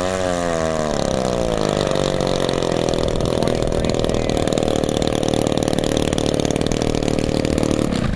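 Gas-powered RC float plane's two-stroke engine running at a steady low throttle as the plane taxis on the water, with a brief phasing sweep in the first second. The engine cuts off suddenly near the end as the plane reaches the bank.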